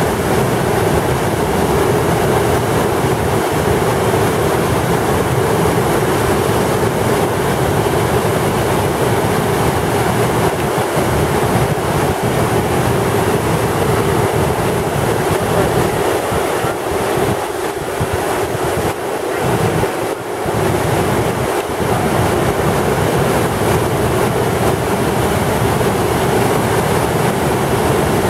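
Niagara River whitewater rapids churning through the gorge: a loud, steady roar of rushing, breaking water that eases slightly for a few seconds about two-thirds of the way through.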